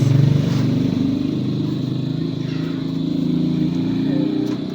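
A motor engine running steadily, fading near the end.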